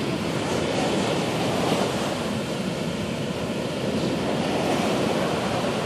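Heavy ocean surf: large waves breaking and washing in, a steady, unbroken rush of water.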